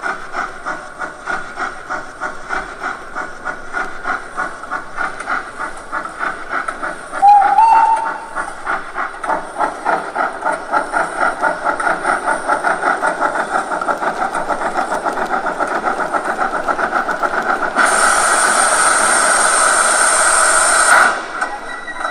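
Steam-locomotive sound from the ESU LokSound 5XL decoder in a 1:32 Gauge 1 model of the Class 52: exhaust chuffs that quicken as the locomotive gathers speed, and a short whistle blast about seven seconds in. Near the end comes a loud burst of steam hiss lasting about three seconds, which stops abruptly.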